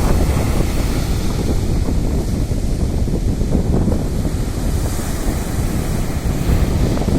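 Sea surf and wind: a continuous rushing noise, with wind buffeting the microphone and adding a heavy low rumble.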